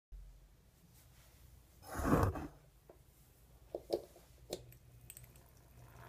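Faint handling sounds over a low hum: a scuffing burst about two seconds in and three sharp clicks near four seconds. Right at the end the homemade siren's rotor starts to turn and a faint rising tone begins.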